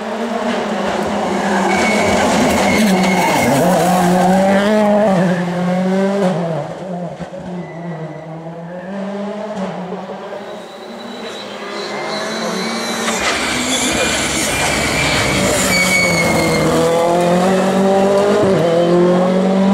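Rally cars at full speed on a tarmac stage: engines revving hard, the pitch climbing and dropping again and again through gear changes. The engine sound eases about seven seconds in and builds back up from about eleven seconds.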